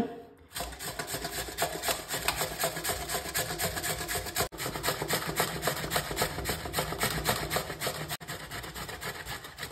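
Whole carrots being grated on a hand grater: quick, even rasping strokes, several a second, with two brief breaks.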